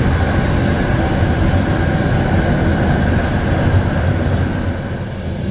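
Train running on the rails: a loud, steady rumble with a faint whine over it, easing slightly near the end.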